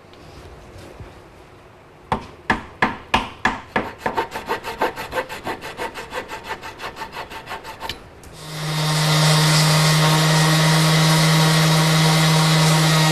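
A thin flush-cut handsaw trimming glued-in oak plugs flush with an oak chair leg: quick back-and-forth strokes starting about two seconds in and speeding up. About eight seconds in an electric sander starts and runs steadily with a hum, sanding the plugs smooth.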